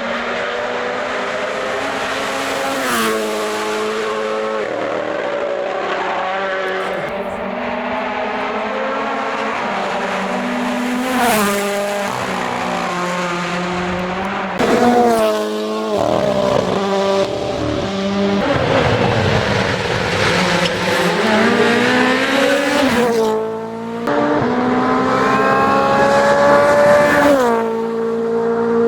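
Rally cars' turbocharged four-cylinder engines at full throttle. The pitch climbs and drops sharply at each upshift several times; in the middle it sags and then climbs back as a car slows and accelerates again.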